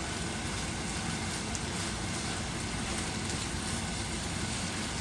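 Chicken breast pieces frying in a pan, a steady sizzle with faint crackles.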